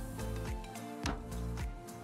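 Instrumental background music with a steady beat, about two beats a second.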